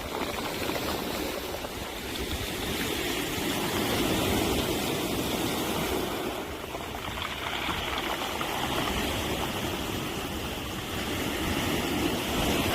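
Sea waves washing against the shore in a continuous rushing wash that swells and ebbs, louder about four seconds in and again near the end.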